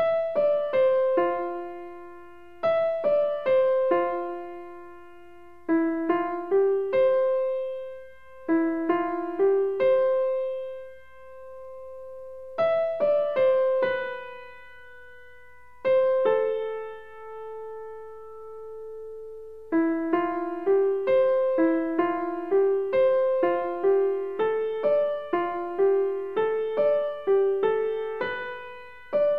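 Background piano music: a slow melody of struck notes that ring and fade, with a couple of longer held notes in the middle, then a steadier, quicker run of notes in the last third.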